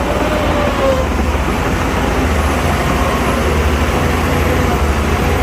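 Heavy earthmoving machinery's diesel engine running steadily with a deep rumble, a thin whine wavering slowly in pitch over it.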